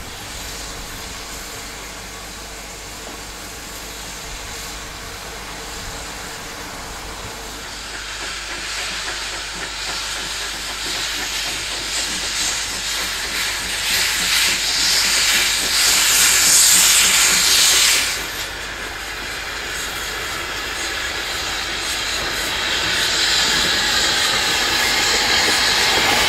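Steam locomotives hissing, the sound building steadily. A tank engine blows loud hissing steam from its open cylinder drain cocks, which cuts off suddenly. Near the end, tank engines including the 1888 LNWR Coal Tank 1054 work past close by with rising noise.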